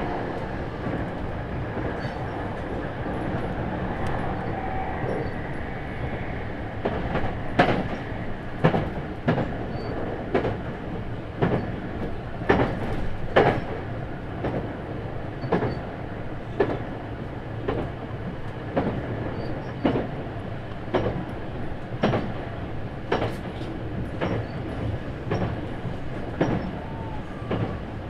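Running noise inside a JR 651 series motor car (MoHa 650, MT61 internal-fan traction motors) travelling at speed: a steady rumble with a faint whine. From about seven seconds in, the wheels knock over rail joints roughly once a second.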